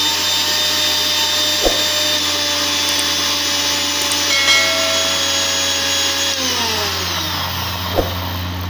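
Sujata mixer grinder's motor running at speed, blending a jar of liquid shake, with a steady high whine. About six and a half seconds in, its pitch falls as the motor slows, leaving a low hum. Two light knocks come early on and near the end.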